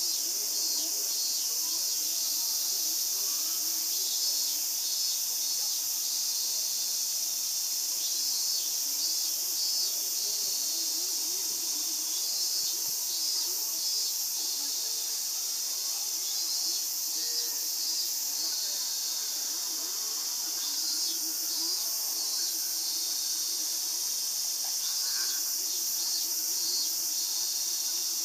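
Insects chirping and trilling: a constant high buzz with short chirp phrases repeating every second or two.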